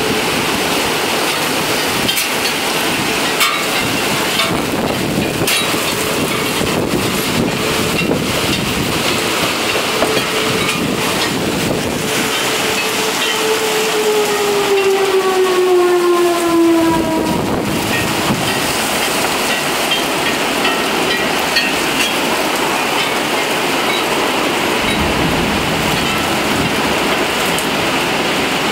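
Heavy rain pouring steadily, with scattered sharp ticks of drops. A distant steady horn-like tone sounds through it, then slides down in pitch and stops about halfway through.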